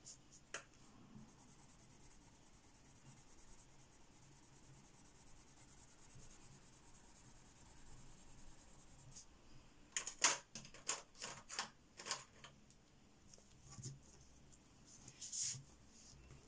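Faint scratching of a coloured pencil being rubbed on thin photocopy paper to lay down colour swatches. About ten seconds in, a quick run of sharp clicks and taps, with two more near the end.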